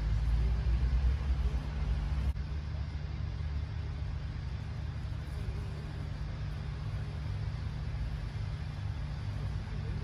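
Steady low rumble of distant road traffic, a little louder in the first two seconds.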